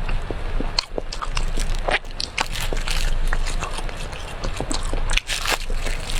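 Close-miked eating sounds: biting and chewing brown sugar cake, with many small, irregular wet clicks and crackles.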